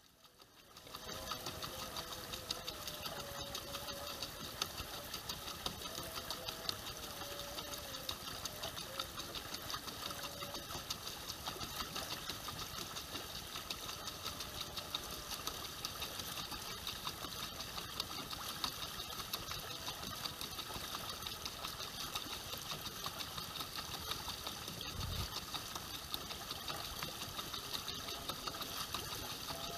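Small boat motor running steadily with a fast, even rhythm, coming in about a second in. One low thump near the end.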